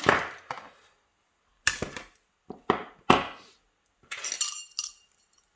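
Small metal lock parts clicking and knocking as a lock is taken apart and its retaining clip is pried off, the loudest click right at the start. About four seconds in comes a quick run of bright, ringing metallic clinks.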